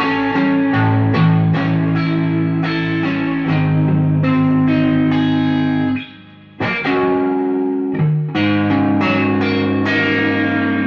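Fender Stratocaster electric guitar played clean through a Fender DeVille and a Blues Junior amp with reverb: chords and notes ringing on. It breaks off briefly about six seconds in, then resumes with fresh strummed chords.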